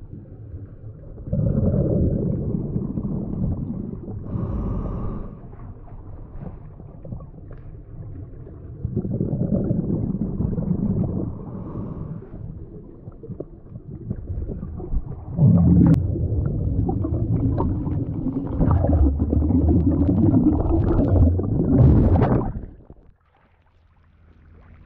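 Scuba diver's regulator breathing heard underwater: three long bursts of low bubbling from exhaled air, with quieter stretches between them. The bubbling cuts off suddenly near the end.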